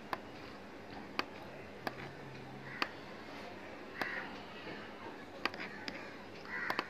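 Computer mouse button clicking, sharp single clicks about once a second, as lines are drawn in a paint program. A few short, faint calls sound in the background.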